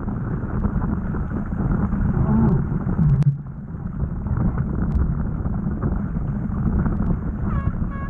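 Wind buffeting the microphone on a small sailing dinghy under way, a steady low rumble mixed with the rush of water past the boat. A few short, high squeaky notes come in near the end.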